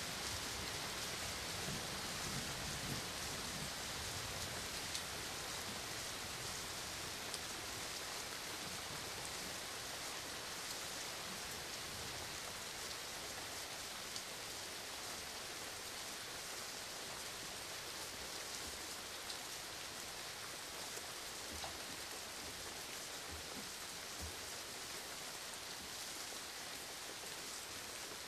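Steady rain falling with a dense hiss and scattered individual drop ticks. A low rumble underneath fades out in the first few seconds.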